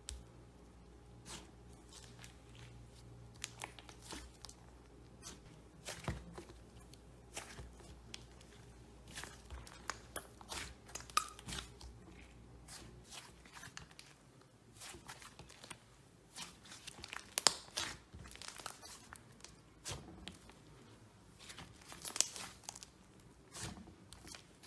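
Hands squeezing and stretching slime, making irregular sticky clicks and pops. A faint low hum sits underneath during the first half.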